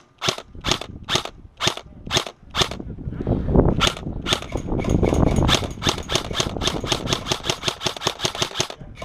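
Airsoft guns firing: single shots about two or three a second, then a faster string of shots, about six a second, from about four seconds in, over a noisy rumble.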